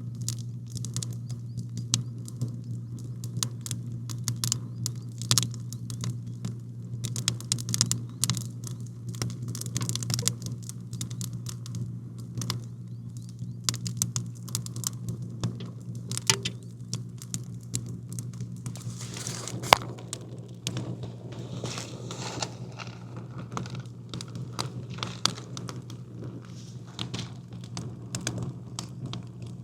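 Campfire crackling, with irregular sharp pops and snaps and a brief hissing flare-up about two-thirds of the way through, over a steady low hum.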